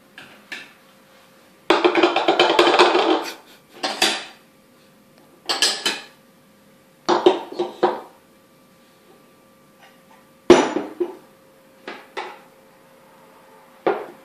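Porcelain teacups, saucers and lacquered lids clinking and rattling as they are lifted out of a lacquer bowl and set down on a wooden table, in a string of short clatters. The longest and loudest rattle comes near two seconds in and lasts about a second and a half.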